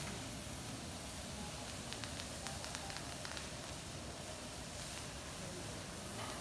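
Bean sprouts and greens sizzling on a hot teppanyaki steel griddle: a steady low hiss, with a few faint ticks about two to three seconds in.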